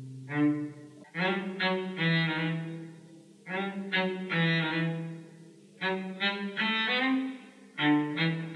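Background music on low bowed strings, a cello-range line of short, sharply attacked notes that fade quickly, several to a second.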